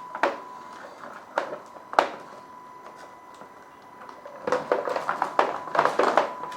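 A 1/10-scale RC crawler truck clambering over rocks: a few sharp knocks in the first two seconds, then from about four and a half seconds a dense run of clattering and scraping as its plastic body and tyres work over the stones. A steady high tone sounds underneath throughout.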